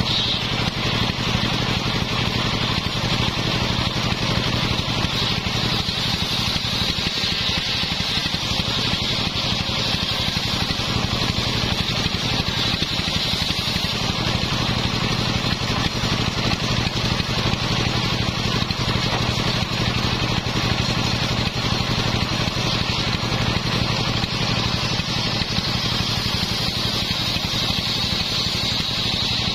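Homemade circular saw ripping a plank of sengon wood lengthwise. The blade gives a steady high cutting whine over the continuous low drone of the motor driving it.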